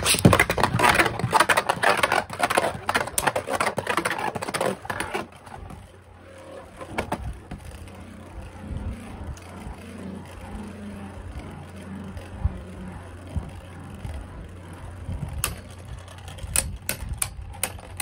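Two Beyblade Burst spinning tops battling in a plastic stadium. For the first five seconds or so they clatter and scrape loudly as they collide and ride the walls; after that comes a quieter steady whirr of the tops spinning, with a few sharp clicks of contact near the end.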